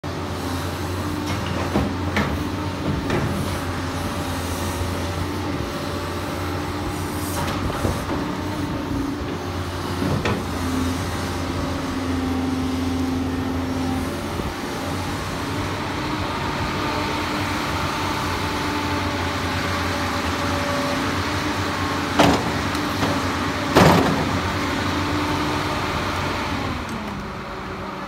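Doosan DX225LCA crawler excavator's diesel engine running steadily under hydraulic load while digging, its pitch shifting slightly as the arm and bucket work. A few sharp knocks break through, the two loudest close together near the end.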